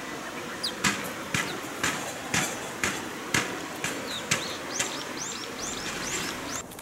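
Sharp knocks repeating about twice a second over steady outdoor hiss, with short high chirps in the background in the second half.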